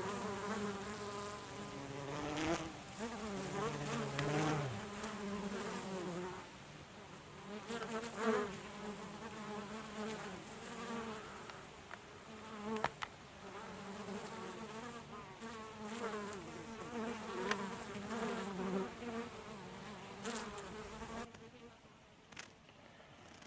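Honeybees buzzing close by, several wing tones overlapping and swelling and fading as the bees move about. A lower buzz comes in briefly about four seconds in, and the buzzing thins out near the end.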